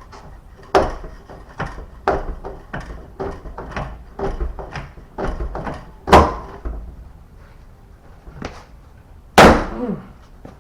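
A car door handle and latch being worked over and over: a run of quick clacks about every half second, then a few louder thunks from the door mechanism.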